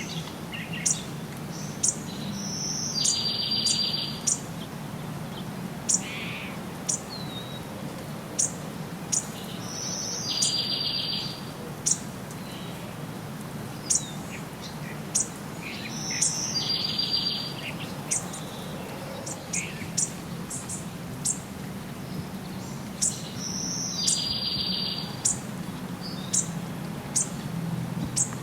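Birds singing: many short, sharp high chirps, and a buzzy trill of about a second that comes back roughly every seven seconds, over a steady low background hum.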